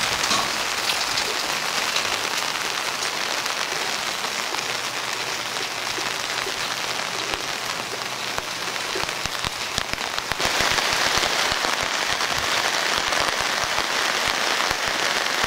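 Steady rainfall, an even hiss of rain with scattered close drops ticking; it grows louder about ten seconds in.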